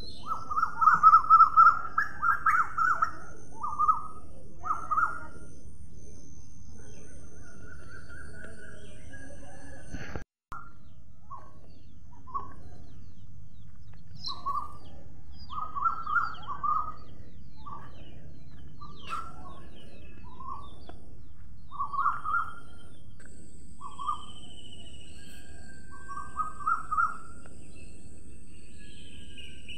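Birds calling outdoors: short chirping calls repeated in quick clusters, loudest in the first few seconds, over a steady low background noise. The sound drops out for a moment about ten seconds in.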